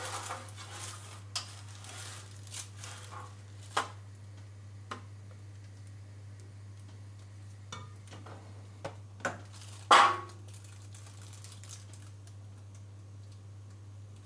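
Plastic sheeting rustling as it is smoothed into a baking tray, then scattered knocks of a wooden spoon against a metal cooking pot, the loudest a sharp knock about ten seconds in. A steady low hum runs underneath.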